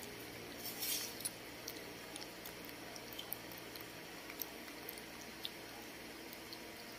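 Baby monkeys lapping and slurping papaya smoothie: scattered small wet smacks and clicks, with a louder slurp about a second in.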